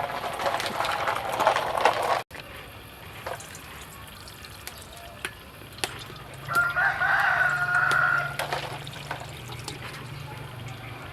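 A rooster crowing once, a drawn-out call of about two seconds past the middle, with a few scattered light clicks and knocks around it.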